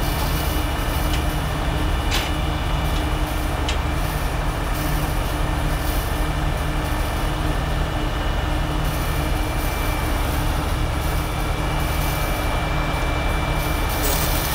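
Heavy-duty rotator tow trucks' diesel engines running steadily to power the hydraulic booms that hold a suspended excavator, a continuous low drone with a couple of light clicks in the first few seconds.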